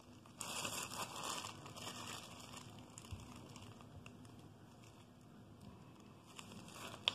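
Plastic icing piping bag crinkling as it is handled and squeezed, loudest for the first couple of seconds, with a single sharp click near the end.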